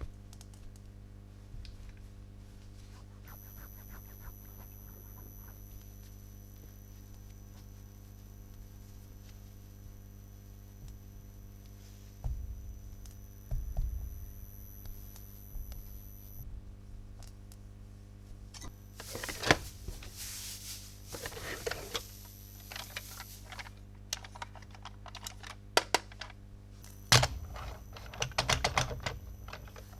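Plastic toy track pieces and packaging being handled: scattered clicks and taps, a few dull knocks, and stretches of scratchy rustling in the second half, over a steady low hum.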